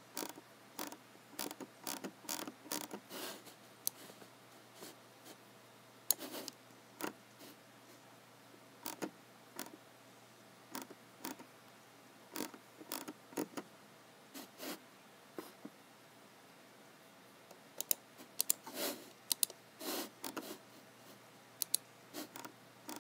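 Computer keyboard keys and mouse buttons clicking as someone works at a computer: irregular runs of quick key clicks broken by single clicks and short pauses.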